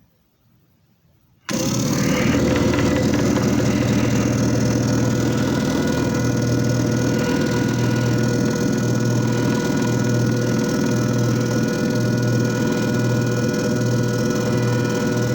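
JFJ Easy Pro disc repair machine's motor switching on abruptly about a second and a half in and running steadily, with a constant low hum and whine.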